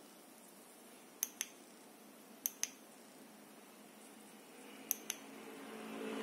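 Three pairs of sharp clicks, the two clicks in each pair a fraction of a second apart, over a faint hiss. A low hum grows louder near the end.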